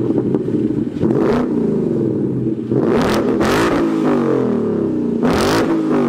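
Ford Mustang GT's 5.0 V8, muffler deleted with 3-inch piping to 5-inch single tips, revved several times from idle, heard from behind the car; each rev rises in pitch and falls back.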